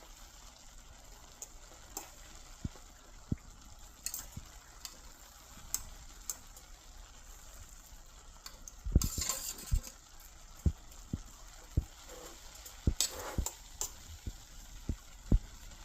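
Kitchen handling sounds: scattered soft knocks and two short, louder scraping or clattering bursts, about nine and thirteen seconds in, over a faint steady hiss.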